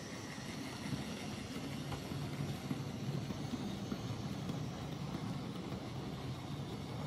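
OO-gauge Bachmann EFE Rail J94 model saddle-tank locomotive running past with a train of model coaches: a steady rumbling whir of its motor and wheels on the rails.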